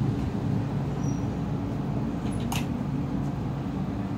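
Steady low hum from a stationary JR West 221 series electric train standing at the platform, its onboard equipment running, with one sharp click about two and a half seconds in.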